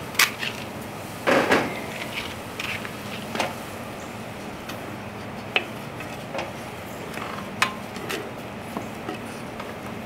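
Wooden spoon stirring in a clay pot of hot water: scattered light knocks and scrapes of wood on clay, the loudest about a second and a half in, over a faint steady hum.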